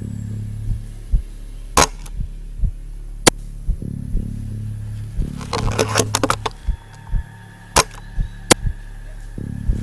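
Background music with a steady low pulsing beat. Over it come several sharp clicks: two single ones in the first few seconds, a quick rattling cluster in the middle, and two more near the end.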